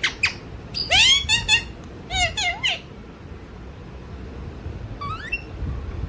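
Pet parrot chattering in its sleep: quick runs of squawky, chirping notes in the first three seconds, then a single faint rising chirp about five seconds in.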